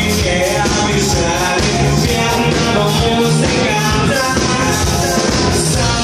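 Live rock band playing loud, amplified music with a steady drum beat.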